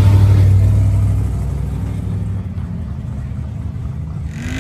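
Car engine rumbling low and steady, loud at first and easing off after about a second to a quieter, steady rumble.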